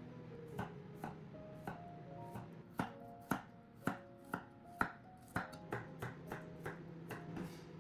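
A knife chopping food on a cutting board, about two sharp strokes a second at an uneven pace, loudest in the middle, over soft background music.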